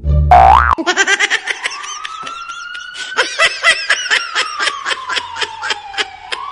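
Siren sound effect: after a quick rising swoop, a long wail slowly rises, falls and starts to rise again near the end, over a fast run of short chirping sounds.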